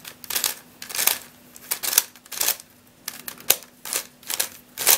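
A Jumbling MF8 Helicopter Dodecahedron twisty puzzle being turned by hand: its plastic pieces click and scrape in about a dozen short, quick turns.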